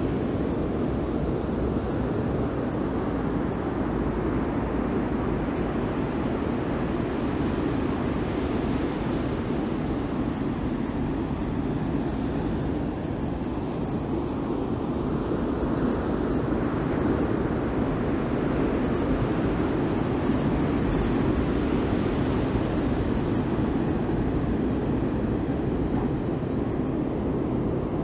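Ocean surf washing on the shore with wind on the microphone: a steady rushing noise that swells twice as waves come in.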